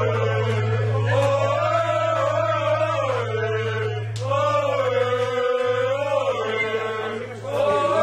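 Voices singing a chant-like chorus live, holding long notes that swell and bend, over a steady low drone. The singing drops out briefly a little before the end, then comes back.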